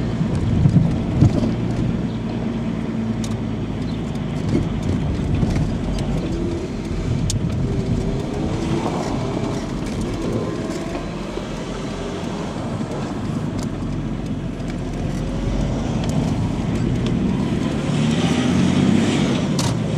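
Steady engine and road noise of a car driving slowly, heard from inside the car. About halfway through, the engine pitch rises and falls a little, and a few faint clicks are heard.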